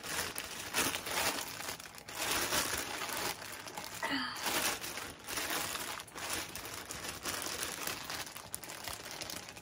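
Plastic poly mailer bag crinkling and crumpling in irregular bursts as a child squeezes and pulls at it, trying to get it open. A brief wavering vocal sound from the child comes about four seconds in.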